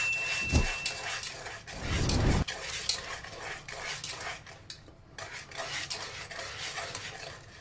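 Wire whisk stirring a thick egg-yolk custard filling by hand, scraping and clicking against the sides of a pan. There is a louder low bump about two seconds in.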